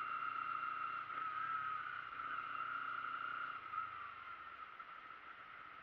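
Kawasaki Ninja 250 riding in traffic, heard from the rider's own bike: engine and wind noise with a steady high whine, dying down after about four seconds as the bike slows.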